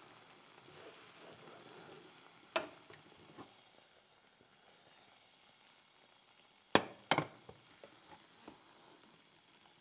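Wooden spatula stirring thick creamy pasta sauce in a non-stick frying pan, then the pan is lifted off and set back down on a gas stove's metal burner grate. This gives a sharp clank about two and a half seconds in and a louder pair of clanks around seven seconds in, followed by a few light taps.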